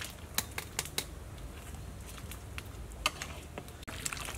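Metal ladle stirring bamboo shoot and pork pieces in a large metal pot, with scattered sharp clinks and scrapes of the ladle against the pot.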